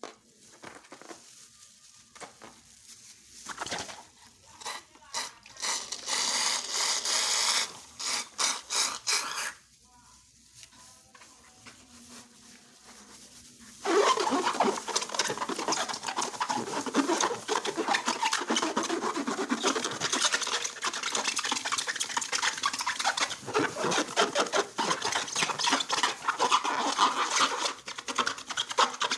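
Slime being worked by hand, wet sticky clicking and squelching in short bursts at first, then a continuous dense crackling squish from about halfway on.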